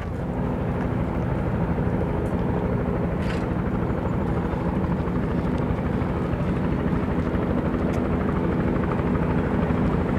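Light helicopter running steadily on the ground: a continuous engine tone with a fast, even rotor beat.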